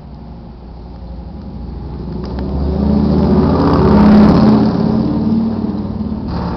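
A car passing by: its engine and road noise grow louder to a peak about four seconds in, then fade away.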